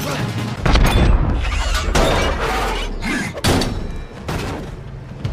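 Film action sound effects: a heavy boom about a second in with a low rumble under it, then several sharp impacts and crashes.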